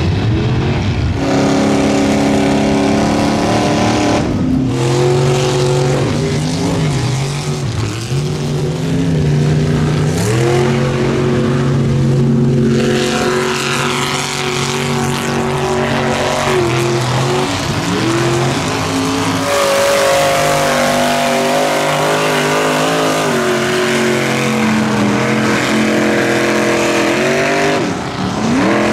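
Lifted mud-bogging trucks' engines revving hard as the trucks run through deep mud, the pitch rising and falling again and again. Several trucks follow one another, with the engine note changing at each new pass.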